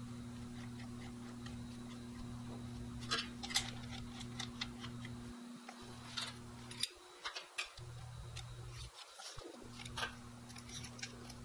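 Faint, scattered clicks and light taps as the small parts of a 17-series air-cooled TIG torch are handled and fitted together: the ceramic cup goes on, the tungsten electrode slides in, and parts touch the steel welding table. A steady low hum runs underneath.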